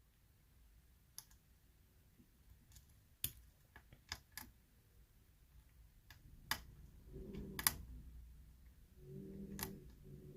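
Faint, irregular clicks of a lock pick working the pins of a challenge lock, about eight sharp ticks a second or more apart. A faint low hum comes in during the second half.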